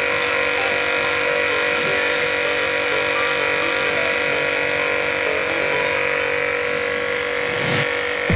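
Portable electric pressure washer running, its motor and pump giving a steady, even whine.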